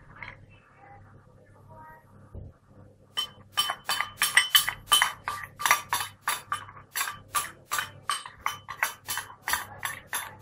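A metal spoon clinking and scraping against a small porcelain bowl, scooping out the last of a salad dressing. The quick clinks start about three seconds in and repeat about three times a second, each with a short ring.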